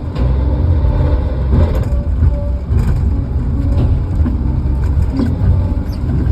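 Vehicle engine running steadily, a loud low rumble with a few faint clicks over it.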